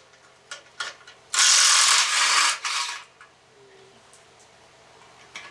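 A power tool spins out a clutch pressure plate bolt in one loud, ratcheting burst a little over a second long, tailing off briefly. A few light clicks come before it.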